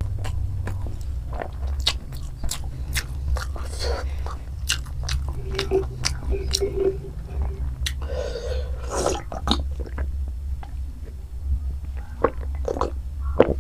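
Close-up chewing and biting of fried chow mein noodles: wet mouth clicks and smacks in quick, irregular succession, with a longer noisy mouth sound about eight seconds in, over a steady low hum.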